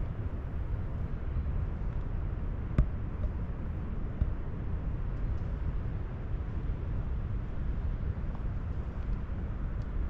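Wind buffeting the microphone outdoors: a steady, low, fluttering rumble, with one sharp click a little under three seconds in.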